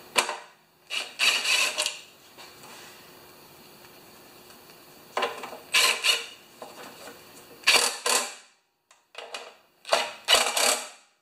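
Cordless drill with a socket extension driving down the bolts of a Honda HRA214 mower's recoil starter housing, in several short runs of a second or less.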